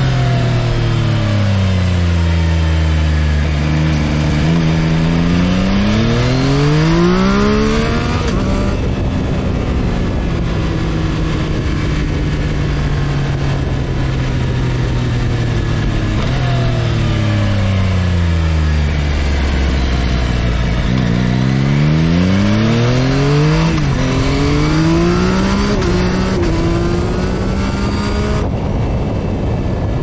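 Stock exhaust of a 2022 Yamaha XSR900's inline three-cylinder engine while riding: the engine note falls off the throttle, holds, then climbs as the bike accelerates, twice over. The second climb has brief steps down in pitch as it shifts up, all over steady wind and road noise.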